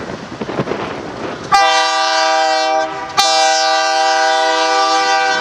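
Diesel locomotive air horn sounding a chord of several notes in two blasts. A short blast starts about a second and a half in, and a longer one follows right after a brief break, over the rumble of the passing stack train.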